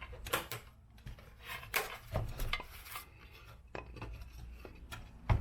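Scattered clicks, knocks and rubbing as parts of a scroll saw's speed-control board and housing are handled and fitted back together, with one sharper knock near the end.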